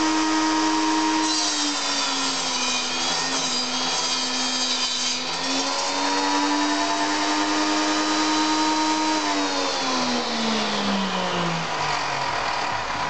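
Schwarzbau TS250A table saw's motor whining at full speed. About a second in, the blade starts cutting a wooden board: the pitch drops a little under load and a bright sawing noise runs for about four seconds. The motor then picks back up to speed, and near the end its pitch falls steadily as the blade spins down.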